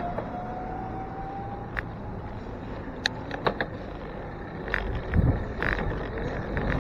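Electric trolleybus pulling away, its motor whine rising in pitch for about the first two seconds over traffic noise. A few sharp clicks follow, and wind noise on the microphone builds near the end.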